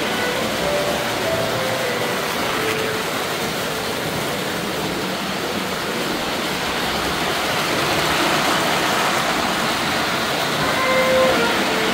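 Three-rail O-gauge model trains running around the layout, with a steady rumble of metal wheels on the track. A few brief melody notes sound near the start and again near the end.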